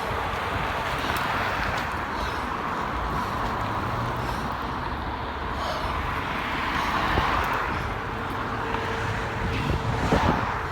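Road traffic, a steady rush of vehicle engines and tyres that swells a little twice, with wind on the microphone.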